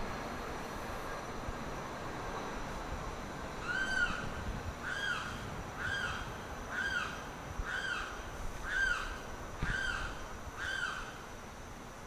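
Limpkin calling, a run of eight loud calls at about one a second, starting about four seconds in. Each call is a short note that rises and then falls in pitch.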